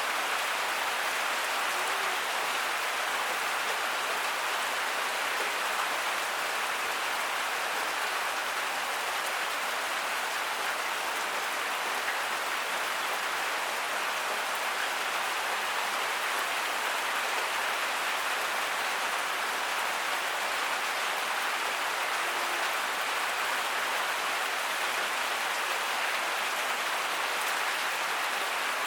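Heavy tropical rain falling steadily, an even hiss with no let-up and no thunder.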